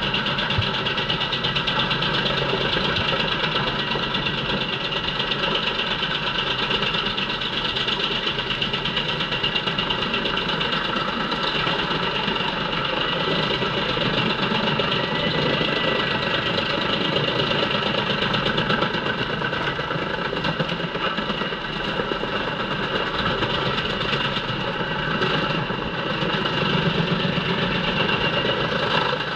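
JENZ HEM 593-R truck-mounted wood chipper running under load, chipping poplar trunks fed in by its crane. Its engine and chipping drum make a loud, steady machine noise.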